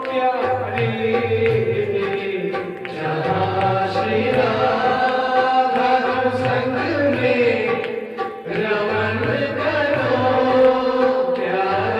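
Devotional bhajan music: a male voice singing in long, gliding phrases over sustained instrumental tones and a steady hand-drum beat.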